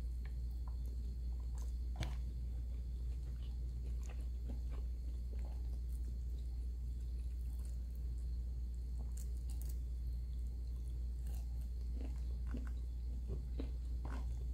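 A person eating rice and shrimp by hand close to the microphone: soft chewing with scattered small sharp mouth clicks and smacks, over a steady low hum.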